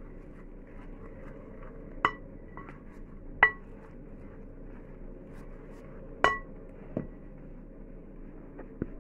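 A utensil clinking against a mixing bowl as flour is stirred into dough. Three ringing clinks come about two, three and a half and six seconds in, with a few softer knocks between them.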